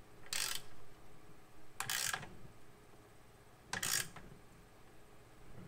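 Ratcheting 17 mm wrench clicking as it tightens a threaded transmission-line fitting into an aluminum radiator, in three short runs about two seconds apart.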